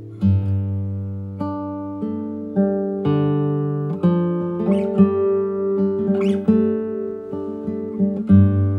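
Acoustic guitar music: plucked notes and chords, each ringing and dying away, in an unhurried fingerpicked melody, with a new low note struck near the end.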